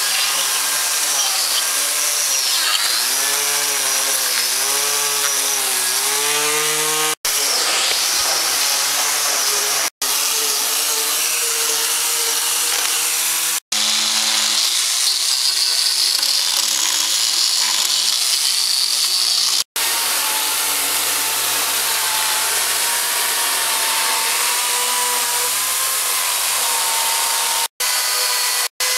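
Hand-held electric power carving tools cutting into a wooden log, in several short clips: a motor whine over the rasp of wood being chewed away. The motor's pitch sags and recovers as the cutter bites, and the sound drops out for an instant at each cut between clips.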